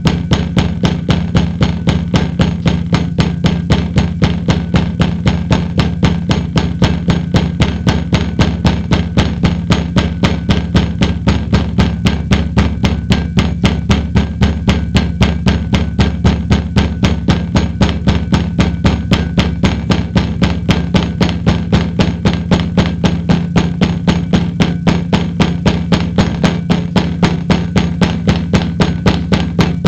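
A steady low hum with a fast, even knocking over it, about three or four knocks a second.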